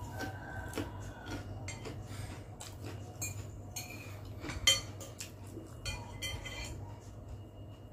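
Metal spoon and fork clinking and scraping against a glass bowl during a meal, a run of irregular clinks with the sharpest one a little past halfway, over a low steady hum.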